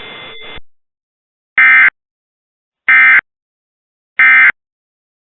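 Three short, loud Emergency Alert System end-of-message data bursts, the modem-like EAS digital code, each about a third of a second long and evenly spaced about 1.3 seconds apart, marking the close of the test. Before them, a steady hiss of broadcast audio with faint tones cuts off abruptly about half a second in.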